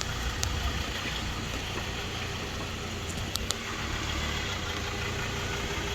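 Four-wheel-drive vehicle's engine idling, a low steady hum, with a few faint clicks.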